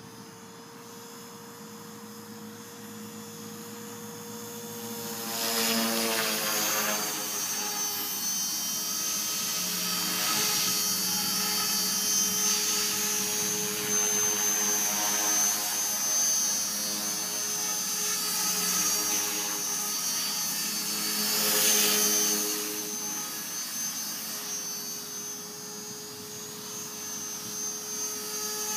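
Align T-Rex 450 Pro V2 electric RC helicopter in flight: a steady whine of motor and rotor blades. It grows louder about five seconds in, with the pitch dropping as it passes close, and is loudest on another close pass a little past twenty seconds.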